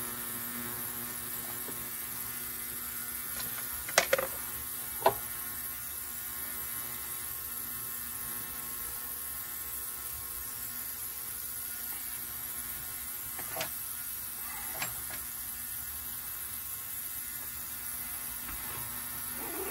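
Steady electrical hum with a few sharp clicks of hand work on small parts, two about four and five seconds in and two more past the middle.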